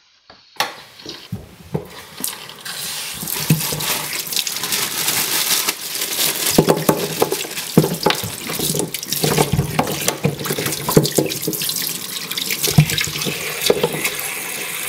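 Tap water running into a kitchen sink and splashing over root vegetables (rutabaga, parsnips, carrots) as they are rinsed. It starts about half a second in and is broken by scattered short knocks.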